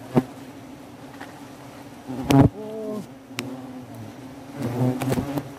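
A swarm of wasps buzzing in a steady hum around their disturbed nest, with a few sharp clicks, the loudest about two seconds in.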